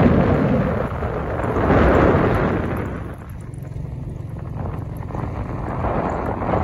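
Wind rushing over the microphone of a phone carried in a moving vehicle, with a low engine hum underneath. The rushing is loudest for the first two seconds and eases about three seconds in.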